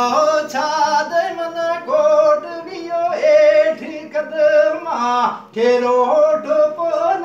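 A man singing solo in a high voice, with long held, wavering notes and short breaks between phrases.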